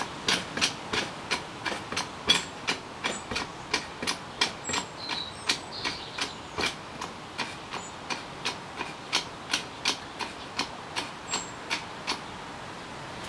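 Hand-cranked winch on a small pedestal crane ratcheting as the hook is raised: an even run of metallic clicks about three a second, stopping about a second before the end.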